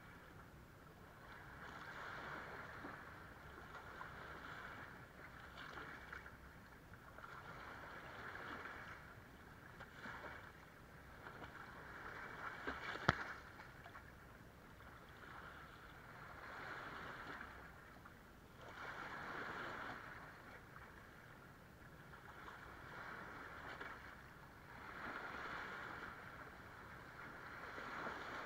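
Small waves washing in over sand and around rocks at the shoreline, surging and fading every few seconds. There is one sharp click about halfway through.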